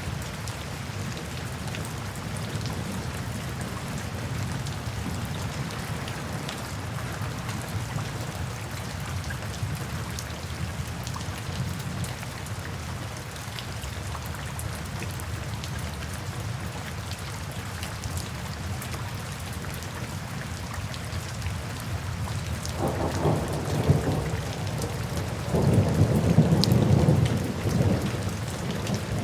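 Steady rain falling, with thunder rumbling twice near the end, the second roll longer and louder.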